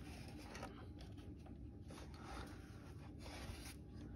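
Faint, scattered small clicks and scrapes from plastic model-kit parts being handled, over a low steady room hum.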